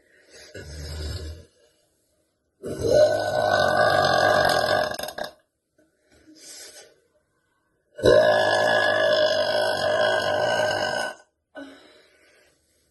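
A woman burping: two long, loud, drawn-out burps of about two and a half to three seconds each, the first a few seconds in and the second about halfway through. Shorter, quieter sounds come near the start and between and after the burps.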